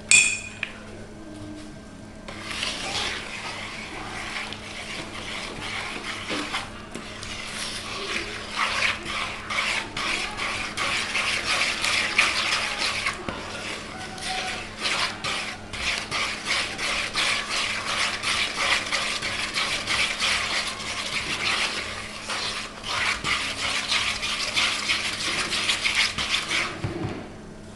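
Wooden spoon beating thick cake batter of creamed butter, sugar and beaten egg in a plastic mixing bowl: fast, steady scraping and squelching strokes. It starts about two seconds in and pauses briefly a few times.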